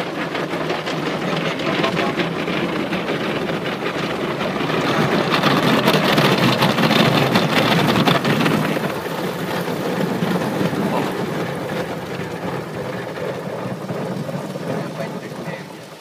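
Water spraying and pelting onto a car's windshield and body in an automatic car wash, heard from inside the cabin: a dense, rain-like rush that swells in the middle and eases off toward the end.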